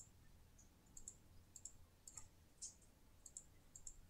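Faint, quick computer mouse-button clicks, a few each second, as windows are clicked shut one after another, over a low steady hum.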